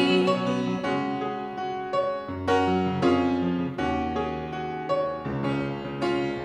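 Grand piano playing an instrumental passage between sung lines: chords and a melody over low bass notes, a new note or chord struck every half second to second.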